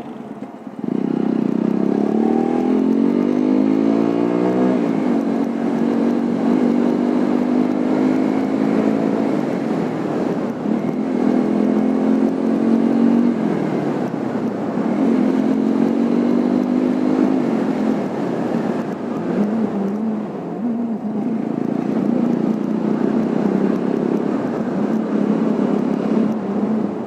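TVS Apache single-cylinder motorcycle engine under way: it picks up about a second in and rises in pitch as it accelerates, drops back at a gear change, then keeps rising and easing off in several more stretches as the bike rides on.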